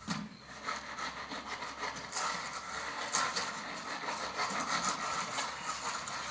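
Rough scraping and rubbing in many short, irregular strokes.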